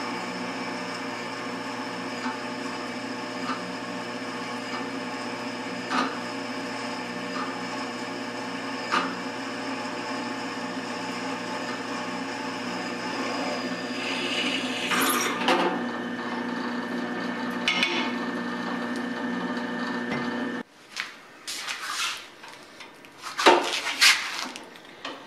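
Drill press running steadily as a twist drill bores into a steel workpiece, with a few chip ticks and a rougher grinding patch partway through. The motor stops suddenly about twenty seconds in, followed by several metal clanks and clatters as the part is handled on the cast-iron table.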